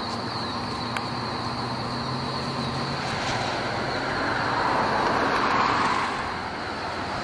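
Steady road traffic noise, with a vehicle passing and swelling louder about five seconds in.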